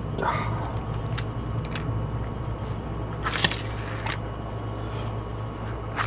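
A few light clicks and taps from a small Hot Wheels die-cast toy car being handled and set on a surface, over a steady low hum.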